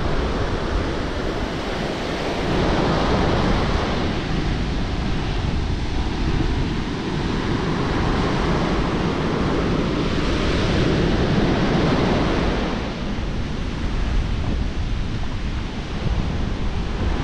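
Sea surf washing onto a beach, swelling and easing every few seconds, with wind rushing over the microphone.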